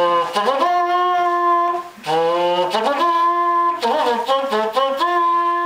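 A small brass horn blown in a short tune of held notes that slide up into pitch, with a brief break about two seconds in and a long held note near the end.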